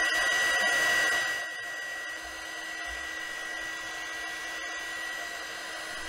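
KAIWEETS KEH01 mini heat gun running on its low setting, its fan blowing a steady rush of air with a high whine as it heats solder paste on a circuit board. The sound drops noticeably about a second and a half in, then holds steady.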